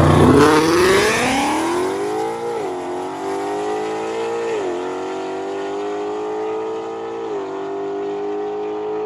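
Two drag cars, one a Ford Mustang, launching hard off the line and accelerating away flat out. The engine note climbs and drops back at each of three upshifts, loudest at the launch and then fading as they pull away down the strip.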